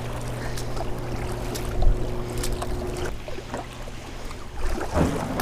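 Kayak being paddled: the double-bladed paddle dipping and splashing with each stroke, and water washing along the hull as it moves.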